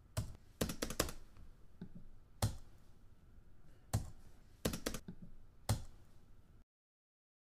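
A series of sharp clicks or taps, some single and some in quick runs of three or four, that cut off abruptly into dead silence near the end.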